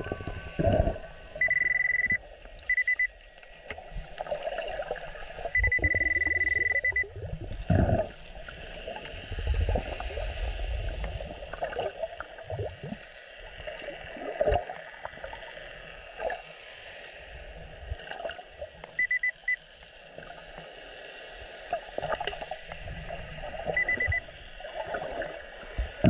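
Nokta Makro Pulse Dive underwater metal detector beeping in short, steady tones several times, signalling a metal target in the sand. Under it come the muffled wash of water and knocks and scrapes of hands digging in the seabed.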